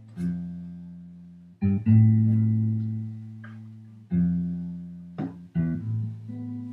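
Acoustic guitar strumming single chords, each left to ring and fade, about five strums a second or two apart. Lighter, quicker plucked notes come near the end.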